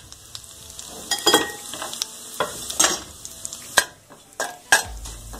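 Whole spices (fennel seeds, cinnamon, cloves, star anise) frying in hot oil in a stainless steel kadai with a faint sizzle. A metal spoon stirs them, clinking and scraping on the pan several times.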